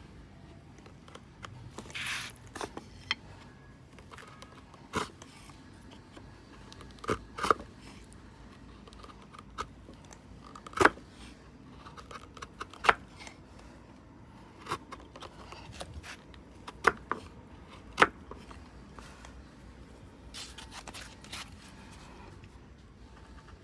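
Scattered sharp knocks and clicks, unevenly spaced, with a short scraping noise about two seconds in.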